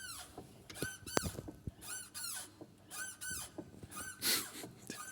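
Short, high squeaks repeating irregularly about once or twice a second from around the clutch release bearing of a 2021 Renault Duster 1.6 H4M. The squeak came back after the release bearing was replaced and shows on a cold engine; the service suspects the clutch damper.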